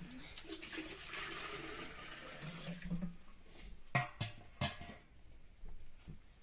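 Water poured in a steady stream for about two and a half seconds, then two sharp metal clanks about four seconds in as stacked steel bowls are handled.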